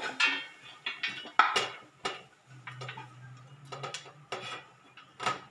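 A spatula scraping and knocking against a black wok as cooked potato-cauliflower filling is pushed out onto a steel plate: a run of irregular metal scrapes and clinks.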